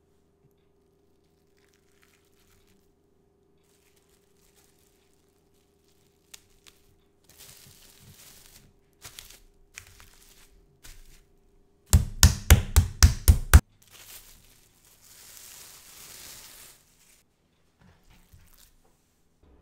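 Cling film crinkling over a butterflied chicken breast on a wooden cutting board. About midway comes a quick run of about eight hard strikes in under two seconds as the chicken is pounded flat through the film, followed by more crinkling of the film.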